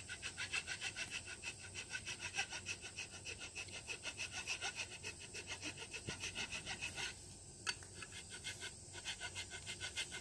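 Rough rasp filing a wooden axe handle in quick, even back-and-forth strokes, about four a second, with a short pause about seven seconds in. The strokes take down the rim the axe head pressed into the wood, bringing it flush.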